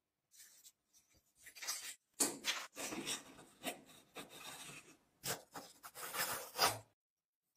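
A pointed metal tool scraping and picking crusted rust and old grease off the clockwork motor of a 1951 Sutcliffe tin toy submarine, in a series of irregular scratchy strokes that stop just before the end.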